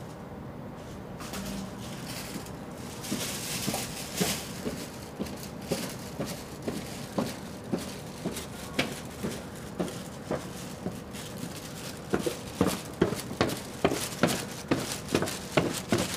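Footsteps coming down an outdoor apartment staircase, about two steps a second, getting louder as the walker nears the bottom.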